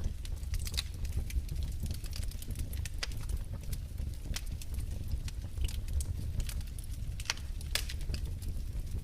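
Wood fire crackling in a fireplace: irregular sharp pops and snaps, several a second at times, over a steady low rumble of the flames.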